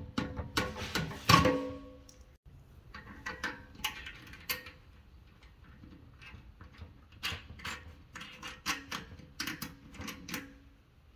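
Guitar background music, loudest in the first two seconds and fainter after, over light metallic clicks and taps as a steel electrical box is fitted and screwed onto a furnace blower's sheet-metal housing.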